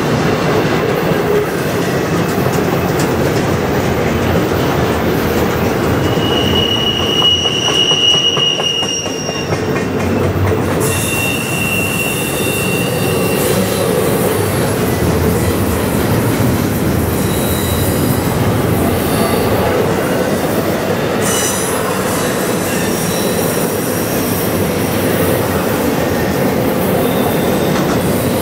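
Double-stack intermodal well cars of a freight train rolling past steadily, with continuous rumble and rattle of wheels on rail and joints. Wheels give a high, steady squeal about a quarter of the way through and again shortly after, with fainter squeals later.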